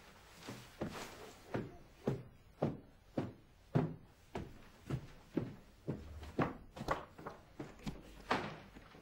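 A man's footsteps on an indoor staircase: steady thuds at about two a second.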